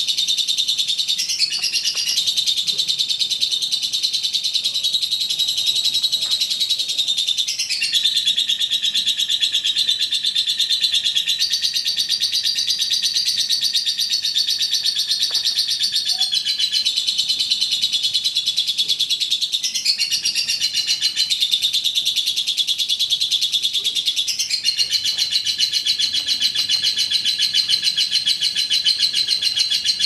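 Fischer's lovebird singing its 'ngekek': a long, unbroken run of rapid, high chattering notes with no pause, shifting in pitch several times. This sustained chatter is the song that contest lovebirds are judged on for how long it lasts.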